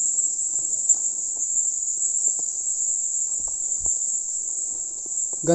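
Steady, high-pitched insect chirring, like crickets, that runs on without a break, with a few faint knocks beneath it.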